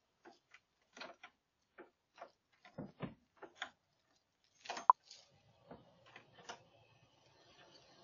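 Irregular metallic clicks and scrapes of someone working at the front door's hardware, trying to force it open. About five seconds in comes a sharp, louder click with a short ring, then a faint low hum.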